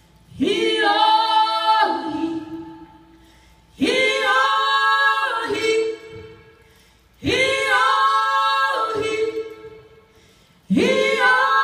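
Women singing unaccompanied, a chant-like canoe song of prayer and celebration: four short repeated phrases, each sliding up in pitch as it begins, with brief pauses between.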